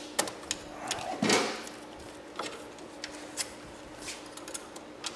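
Scattered light clicks and rustles of hands handling small wires and crimped ring terminals, with a louder rustle a little over a second in, over a steady low hum.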